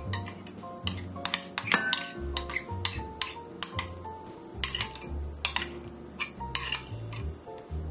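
Background music with a bass line, over sharp clinks of glass and utensils as thick creamy soup is scraped from a glass bowl into a glass casserole dish.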